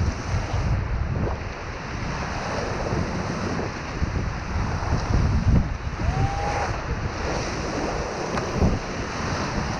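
Whitewater rushing around a raft running a rapid, with wind buffeting the microphone in a low rumble.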